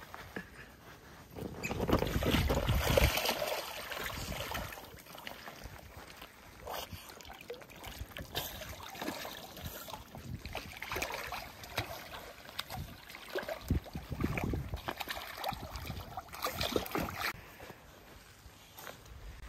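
Otters splashing and sloshing water as they swim and tumble in a small pool. The splashing is loudest about two to three seconds in, then comes on and off in shorter bursts.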